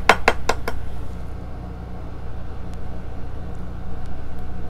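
A quick run of light clicking taps in the first second, typical of a makeup brush knocked against a powder palette, then a steady low hum.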